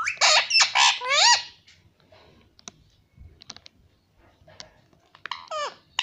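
Indian ringneck parakeet vocalizing: a burst of high, gliding squawky calls over the first second and a half, then a few light clicks in a quiet stretch, and a short call falling in pitch near the end.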